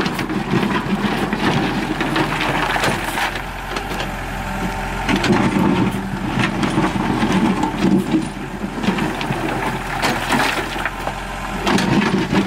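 Excavator engine running steadily under scattered knocks and cracking.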